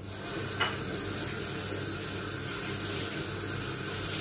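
Kitchen tap running steadily into a sink, starting suddenly, with a short knock about half a second in.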